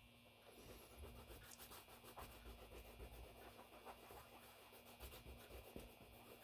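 Faint scratching and rustling of hands handling tape and small tools, with a few light clicks.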